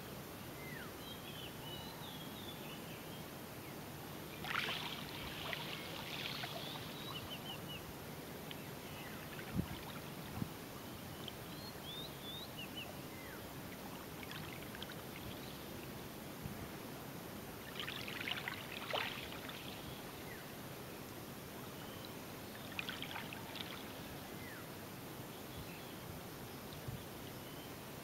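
Calm sea lapping softly at the edge of a pebbly beach under a steady low hiss, with a few brief louder laps and scattered short bird chirps.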